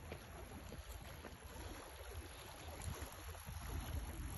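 Faint, steady outdoor noise of water washing at the shoreline, with a low rumble of wind on the phone's microphone.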